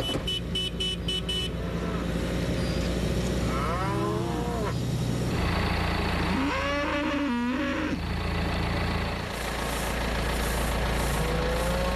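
Cattle mooing: a call about four seconds in, a longer one around seven seconds, and a rising call near the end, over the steady low running of an engine. A quick run of about six short high pulses sounds in the first second or so.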